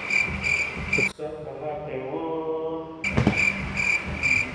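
Insect-like chirping, about three even chirps a second. It breaks off about a second in, and for about two seconds is replaced by a short run of tones that step upward, then the chirping resumes.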